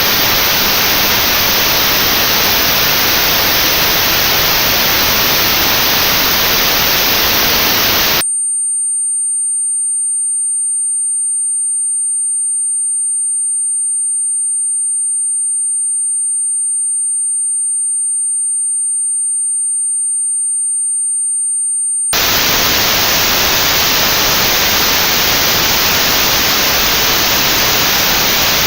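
Notched white noise for tinnitus sound therapy: steady hiss with a band of very high frequencies cut out. About 8 seconds in it switches to a single steady, very high pure test tone at the pitch of the notch, held for about 14 seconds, and then the notched hiss comes back.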